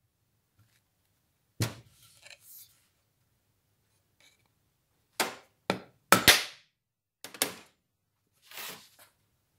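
Screwdriver and a small metal vial housing clicking and knocking against a wooden spirit level and a steel bench as the housing is unscrewed and pulled out: one sharp knock about a second and a half in, a cluster of sharp knocks a few seconds later, and a short scrape near the end.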